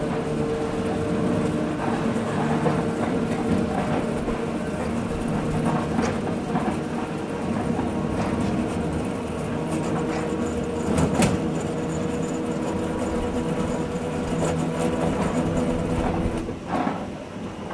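A train running along the line, heard from the driver's cab: a steady mechanical hum with a few held tones and the clack of wheels over the track. A sharper clank comes about eleven seconds in.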